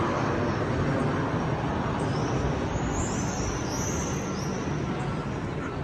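City street traffic noise, a car's passing rumble slowly fading away, with a few short high chirps near the middle.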